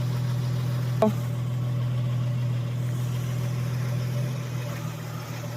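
Jeep's engine running steadily with a low, even hum, with a brief click about a second in.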